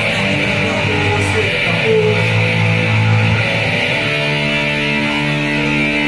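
Live rock band opening a song with no vocals: electric guitar and bass guitar playing loud, held notes.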